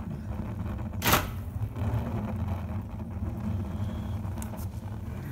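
Sawdust-fed rocket heater running, its hopper shaken by an old 12-volt oscillating multi-tool: a steady low buzzing hum, with one sharp crack about a second in.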